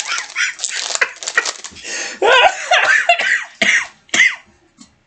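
A man laughing hard in high, wavering bursts, broken by short breaths, with the rustle and flick of trading cards being handled in between.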